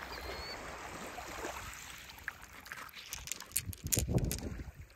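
Shallow lake water splashing and sloshing around a hand as it scoops small pebbles off the stony bottom, with sharp clicks of stones knocking together in the second half. Before that, softer steps and shore noise on a pebbly sand beach.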